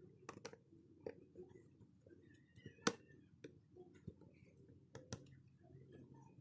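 Faint scattered clicks and light taps of small plastic and metal parts being handled during a phone repair, with one sharper click about three seconds in.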